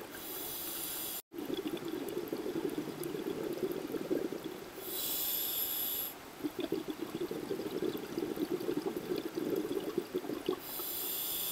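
Scuba diver breathing through a regulator underwater: a hissing inhale about every five seconds, three in all, with bubbling, gurgling exhalations between them.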